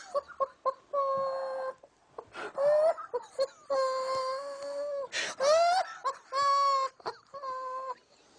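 A man's voice coming out as a string of drawn-out, high, wailing notes instead of words, each held about a second at an almost fixed pitch, one sliding upward in the middle. It is the strange voice of a man whose vocal cords were damaged in a tonsil operation.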